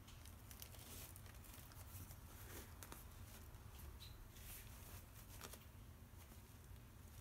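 Faint scratchy rustling and rubbing as a hand brushes across a silkscreen's mesh and frame, in short irregular strokes over a low steady hum.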